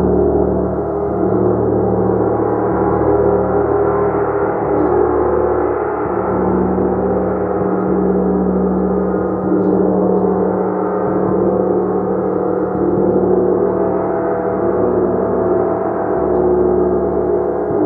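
A gong played continuously, giving a dense, sustained wash of many overlapping tones that swells and ebbs gently without a break.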